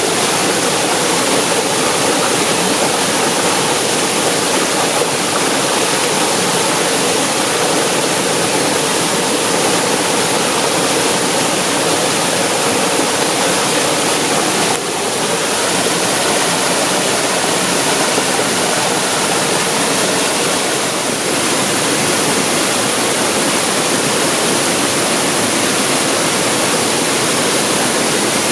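Waterfall pouring steadily, a dense, even rush of water heard close, with a brief dip in level about halfway through.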